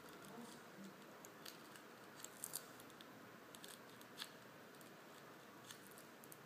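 Faint, irregular crackly ticks of a pointed tool piercing large holes in two layers of kitchen aluminium foil stretched over a hookah bowl.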